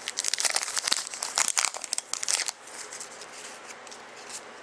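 Hockey trading card pack wrapper being torn open and crinkled by hand, a dense crackling for the first two and a half seconds that then thins out to a few faint rustles.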